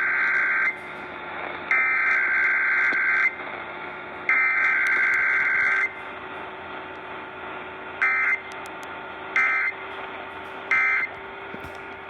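Emergency Alert System SAME data bursts received over AM radio. The buzzy digital header is sent three times, about 1.5 s each, then three short end-of-message bursts a second and a half apart, with no attention tone between them. A low hum and static lie underneath.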